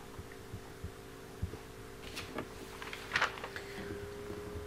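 A low steady hum of several tones with a few soft low thumps and faint short clicks.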